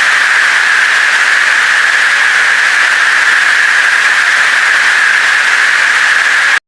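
Loud, steady hiss of static noise that cuts off suddenly near the end.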